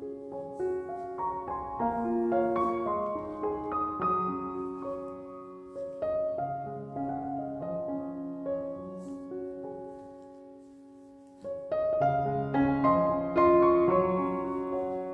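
Background piano music playing gentle, slow chords; it thins out and quiets about ten seconds in, then picks up again with fuller chords.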